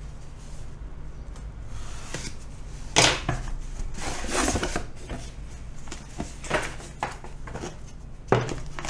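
A cardboard power-supply box being handled and opened on a wooden desk: a knock about three seconds in, then cardboard scraping and rubbing as the lid slides off, with a few lighter knocks and another sharp knock near the end.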